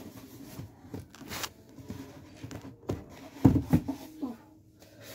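Knocks, taps and scraping from handling a large flat-pack furniture panel during assembly, with the loudest cluster of knocks about three and a half seconds in.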